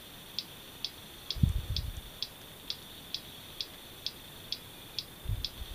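Gotek USB floppy emulator clicking evenly, about two clicks a second, as it steps through the disk while CP/M loads CIS COBOL, over a faint steady high whine. Two soft low thumps come in, about a second and a half in and near the end.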